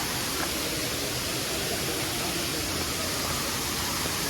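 Steady rushing noise, even and unbroken, with faint voices underneath.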